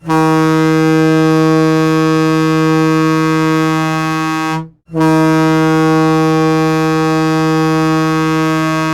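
Goal horn sounding two long, steady blasts on one low pitch, split by a brief break about halfway through.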